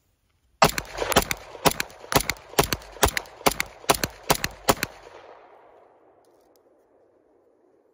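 Gen 3 Glock 34 9mm pistol firing ten rounds of 115-grain full-metal-jacket ammunition in steady slow fire, about two shots a second, each shot trailed by echo. After the last shot the echo dies away over about a second, with the slide locked back on the empty magazine.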